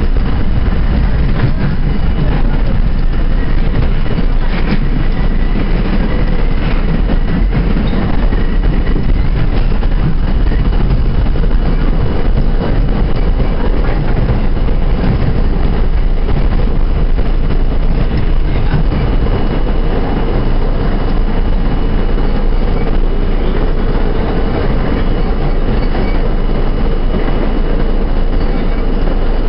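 R32 subway car running through a tunnel, heard from inside the car: a loud, steady rumble of wheels on rails, with a faint high whine wavering in the first several seconds.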